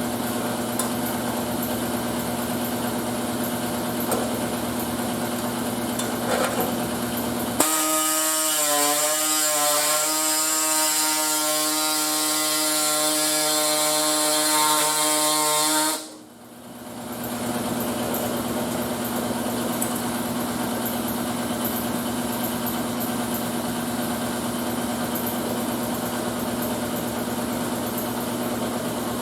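A steady machine hum in a workshop. A power tool runs for about eight seconds in the middle, starting and stopping abruptly with a high whine and hiss.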